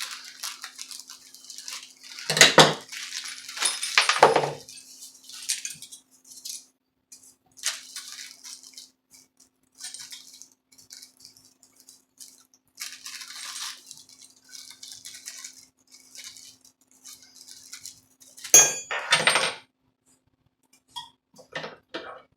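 Plastic packaging crinkling and small metal parts clinking as an oscillating multi-tool's blade, bolt, washers and Allen wrench are taken out and handled, with two louder knocks about two and a half seconds in and near the end.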